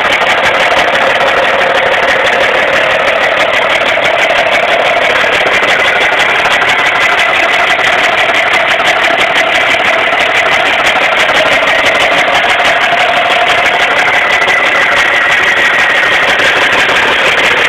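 Lincoln Mark VIII's 4.6-litre DOHC V8 idling with a loud, fast, steady clatter and a high whine, which the owner takes as a sign the engine is not doing well.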